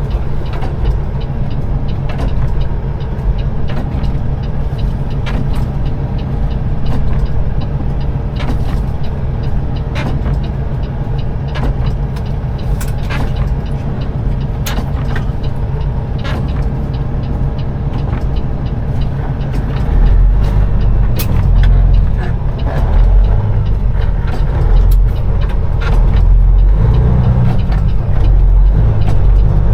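Peterbilt 389 semi truck's diesel engine running at low revs, heard inside the cab as the truck slows, with occasional light clicks. About 20 seconds in, the engine gets louder and deeper.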